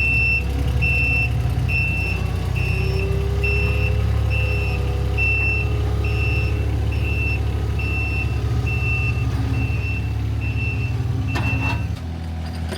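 Diesel engine of a vehicle or site machine running steadily while its reversing alarm beeps about once a second. The beeping stops and the engine drops in level near the end.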